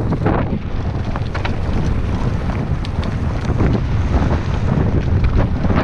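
Wind buffeting the microphone as a mountain bike rides down a loose gravel track, with a steady roar of tyres rolling over the stones and many small clicks and rattles throughout.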